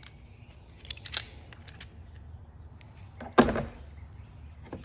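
Metal seal-driver discs being handled in a plastic case: a few light clicks about a second in, then one loud sharp knock about three and a half seconds in.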